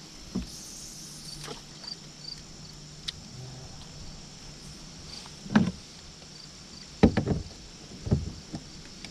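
Several dull knocks of fishing gear against a kayak hull as a rod is set, the loudest about five and a half seconds in and a quick cluster around seven seconds. Crickets or other insects chirp steadily behind them.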